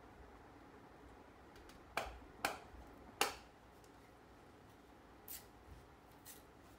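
A thin strip of bamboo being split lengthwise in half with a bamboo-splitting knife: three sharp cracks about two to three seconds in as the split runs down the strip, then two fainter ticks near the end.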